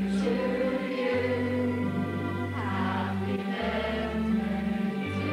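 Choral music: a choir singing held chords over a bass line that changes note every second or two.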